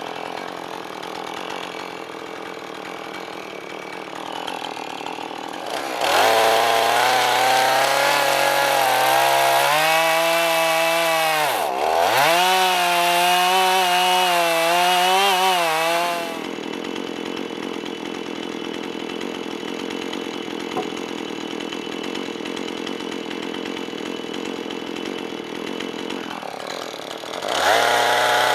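Two-stroke chainsaw idling, then revved to full throttle about six seconds in and held for about ten seconds. Its pitch wavers and dips sharply once midway, as it does under cutting load. It drops back to idle, then revs up again near the end.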